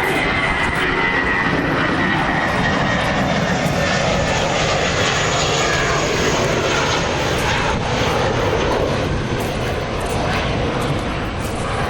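Airliner taking off, its engines making a loud, steady rushing noise with a high whine that slides down in pitch over the first few seconds; the noise eases off slightly near the end.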